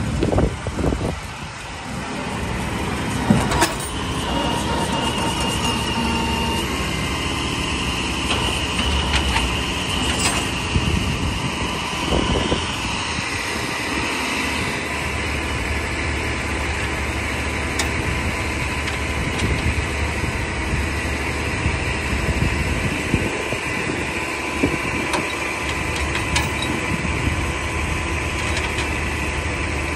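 Flatbed tow truck's engine running steadily, with a high whine over it that shifts lower a little before halfway through, and a few sharp knocks.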